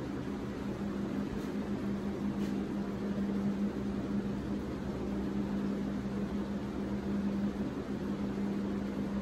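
A steady mechanical hum with one constant low tone and a hiss beneath it, unchanging throughout.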